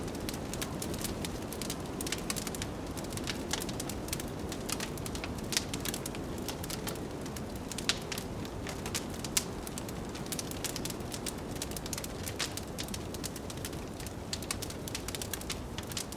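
Wood fire crackling, with frequent sharp irregular pops, over a steady low rush of blizzard wind.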